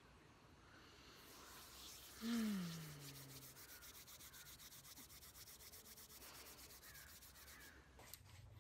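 About two seconds in, a woman's voice gives one soft sighing note that falls in pitch over about a second, just after a sung chant ends. Beneath it, a faint rubbing hiss with fine regular ticks.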